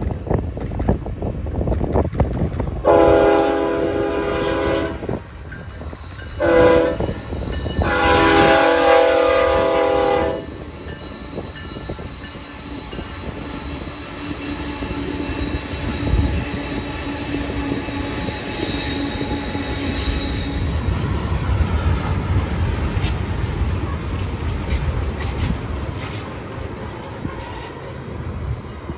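Diesel freight locomotive's air horn sounds three blasts, long, short, long, starting about three seconds in. Then the freight train rolls past with a steady low rumble of locomotive engines and wheels on the rails.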